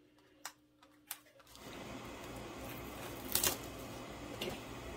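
Packaging being handled: a few sharp clicks, then a louder crackle about three and a half seconds in and a smaller one near the end. Under them, a steady low hiss comes in about a second and a half in.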